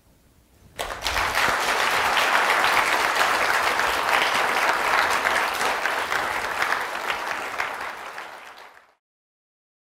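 Audience applauding. The clapping starts about a second in, holds steady, eases slightly toward the end and is cut off abruptly.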